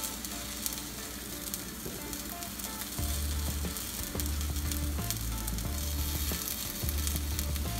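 Shawarma wrap sizzling on a hot grill, a steady frying hiss. A background music bass line comes in about three seconds in.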